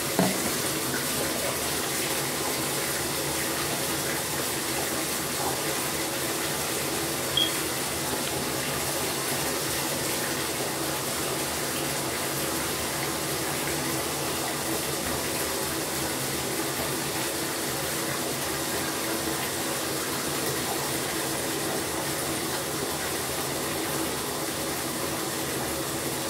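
Bathtub tap running steadily, filling the bath with water. A short knock near the start and another about seven seconds in.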